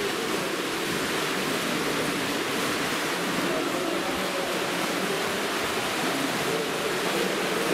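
Swimmers splashing through front crawl in lanes of an indoor pool, a steady wash of water noise.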